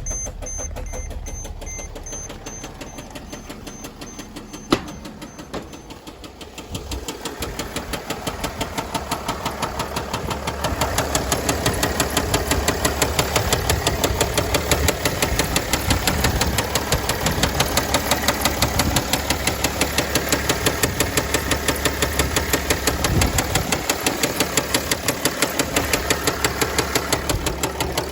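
Mercedes-Benz OM642 V6 diesel of a 2009 ML320 running just after start-up, with a heavy, regular knock of about three a second that grows louder from about seven seconds in. The knock is taken for a rod knock after the engine ran low on oil. A single sharp click about five seconds in.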